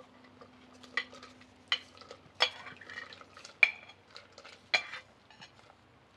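A metal spoon scraping and clinking against a bowl as fresh shrimp are spooned out of it into a pot of broth: about five sharp clinks roughly a second apart, with lighter ticks and scraping between.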